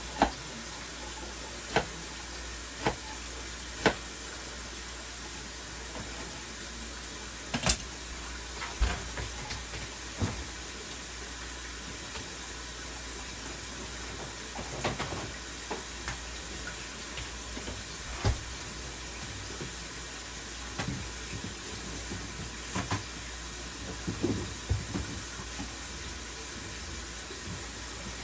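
Chef's knife chopping an onion on a plastic cutting board: sharp chops about once a second for the first few seconds, then a louder knock about eight seconds in and scattered light knocks, over a steady hiss.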